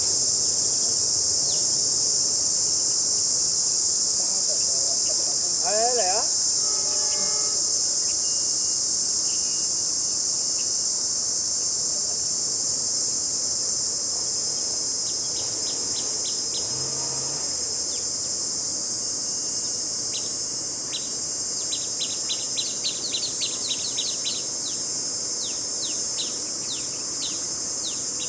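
Steady, loud, high-pitched drone of insects, with short bird chirps scattered through the second half, many in quick succession near the end.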